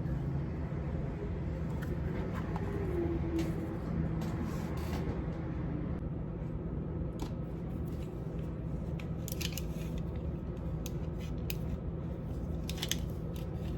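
Light handling noises, scattered rustles and small clicks, with the sharpest cluster in the second half, over a steady low hum. The source is the unpacked paper and the timers being handled.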